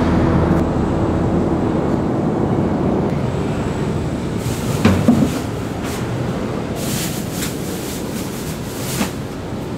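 Steady street ambience, a continuous rumble and hiss, with a single knock about five seconds in and a few short crisp clatters near the end. The last of the music dies away at the very start.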